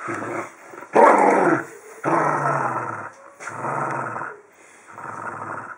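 A dachshund growling during a game of tug with a rope toy, in about five rough growls with short pauses between them. The loudest comes about a second in.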